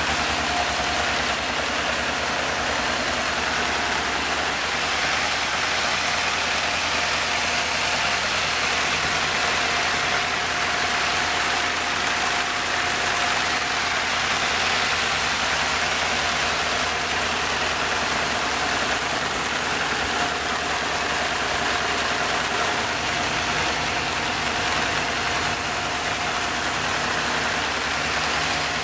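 Lego Technic inline-four vacuum engine running without its supercharger: the vacuum cleaner pulling air through it makes a steady rushing drone with a whine, over a fast rhythmic clatter from the plastic pistons and valve gear.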